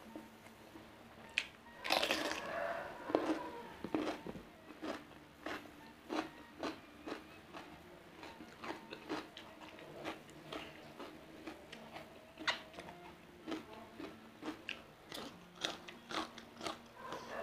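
Close-miked eating: crunching bites of raw cucumber, densest about two to four seconds in, followed by steady chewing with many short wet clicks.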